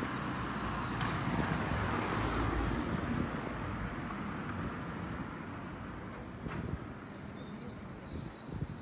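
Broad rushing noise of a vehicle passing, swelling over the first few seconds and then fading. Small birds chirp from about seven seconds in.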